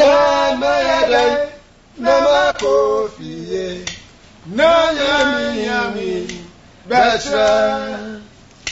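A man singing without accompaniment, in four long phrases with held, gliding notes and short breaks between them.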